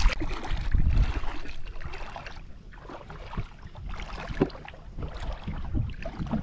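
Shallow seawater splashing and sloshing, loudest in the first second or so, then quieter, with a few short splashes later on.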